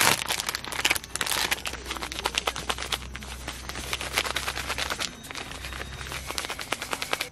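Plastic wrapper of a disposable hand warmer crinkling as it is handled and opened, a dense run of crackles with a sharp crack at the start.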